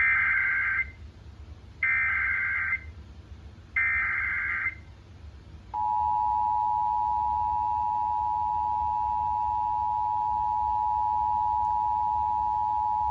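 Emergency Alert System signal announcing a flash flood warning: three short bursts of screechy SAME digital header data, each about a second long. About six seconds in, the steady two-tone EAS attention signal (853 and 960 Hz) starts.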